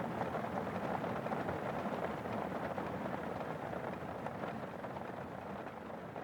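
Steady rain falling on an umbrella and wet pavement, a dense, even spatter of drops that grows a little quieter over the last couple of seconds.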